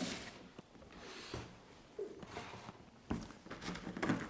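Handling noise from chainsaw parts on a tabletop: scattered light knocks and clicks with faint rustling, the louder ones near the end as the loose saw chain is picked up.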